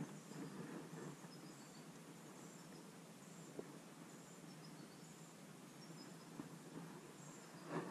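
Near silence: faint outdoor ambience with scattered short high chirps, and a soft bump near the end.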